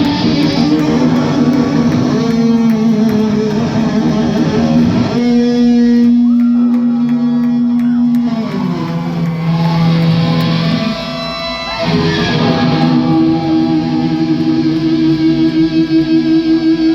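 Live heavy metal band playing: a distorted electric guitar holds long notes that change every few seconds, with a few notes bent in pitch.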